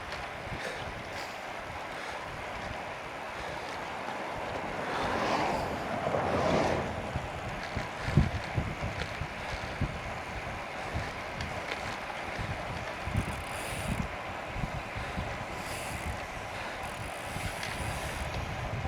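Wind rushing over the microphone and tyre noise from a bicycle being ridden, with low gusty buffeting thumps. A louder whoosh swells and fades between about five and seven seconds in.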